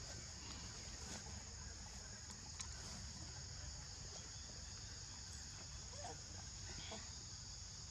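Insects buzzing in a steady, high-pitched drone, over a low rumble with a few faint clicks.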